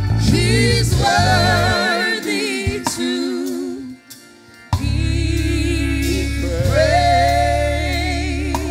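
Gospel praise music: singing with wavering vibrato over a band with a strong bass. The music drops out briefly about four seconds in, then comes back in full.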